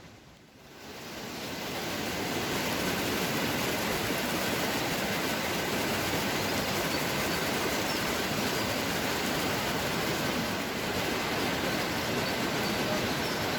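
Waterfall: steady rushing water that fades in over the first second or two and then holds even.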